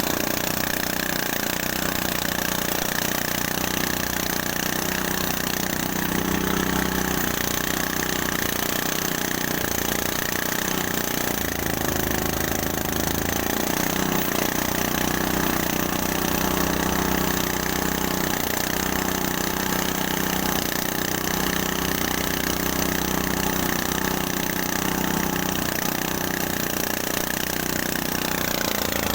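Engine-driven rice threshing machine running steadily, a continuous mechanical drone.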